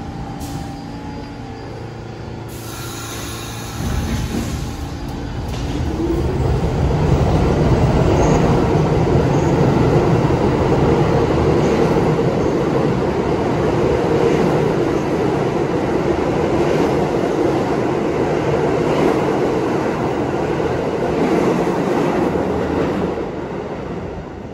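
New York City subway train running through an underground station: the rumble of wheels and motors swells about four seconds in, stays loud and steady, and eases off near the end.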